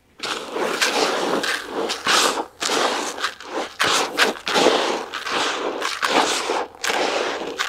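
Hands mixing groundbait: a run of scraping, rustling strokes, two to three a second.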